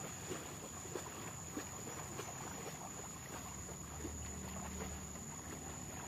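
Water and mud splashing as a water buffalo and a farmer wade through a flooded rice paddy, dragging a tilling implement through the mud. Irregular splashes come about every half second, thinning out in the second half.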